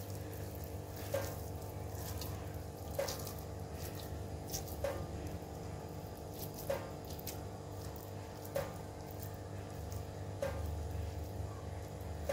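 A steady low hum with a soft tick that repeats about every two seconds. Under it is the faint squish of hands pressing sticky boondi mixture into laddu balls.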